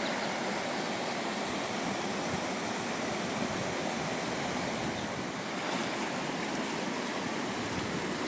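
Floodwater rushing past in a steady, continuous stream.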